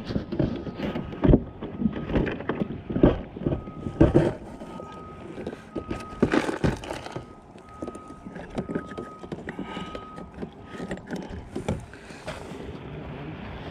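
Irregular knocks, bumps and rustles of hands and gear moving about in a small fishing boat while a deeply hooked fish is being unhooked, with a louder rustle about halfway through. A faint steady high tone comes and goes.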